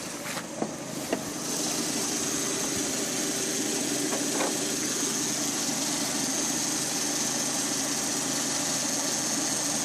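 Lada Priora's VAZ-21126 1.6-litre 16-valve four-cylinder engine idling warm and steady, getting louder about a second and a half in. It runs smoothly, with the piston knock gone after the engine repair.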